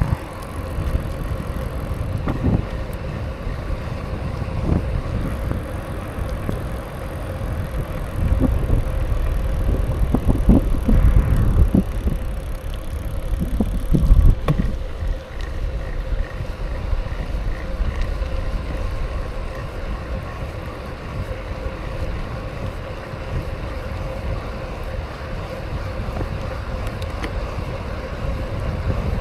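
A BMX bike being ridden, its tyres rumbling steadily over the ground, with occasional knocks and rattles from the frame, loudest between about 8 and 14 seconds in.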